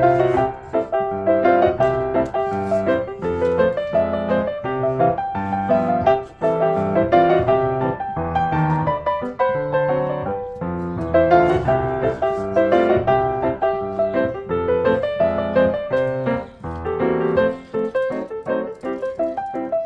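Background music: solo piano playing a flowing melody of many quick notes.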